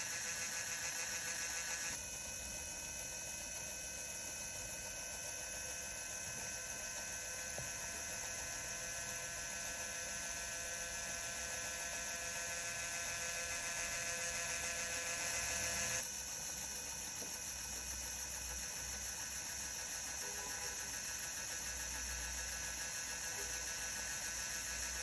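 Small LEGO electric motor whirring as it drives a train of plastic gears, over a steady hiss. A thin whine of several steady tones comes in about two seconds in and cuts off abruptly around sixteen seconds.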